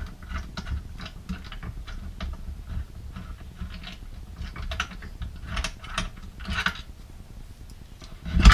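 Roof bike rack fittings being loosened and taken off by hand: irregular small clicks and rattles, with a louder clack near the end.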